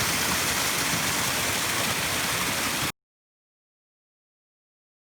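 Mountain waterfall and stream rushing steadily, then cut off suddenly into dead silence about three seconds in.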